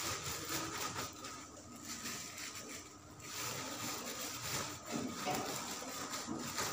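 Clear plastic bag rustling and crinkling as it is handled and packed.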